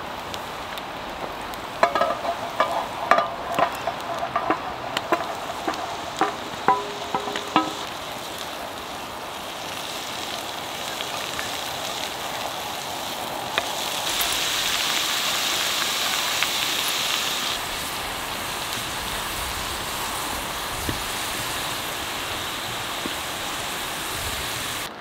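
Garlic and chanterelle mushrooms sizzling in oil in a cast iron Dutch oven over a wood fire. A run of clinks and knocks comes in the first several seconds, and the sizzle swells louder for a few seconds past the middle as the pan is stirred with a wooden spoon.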